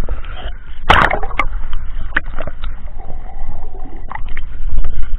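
Water sloshing and splashing against a camera held at the waterline and dipping under the surface, with a low rumble and irregular sharp splashes, the loudest about a second in.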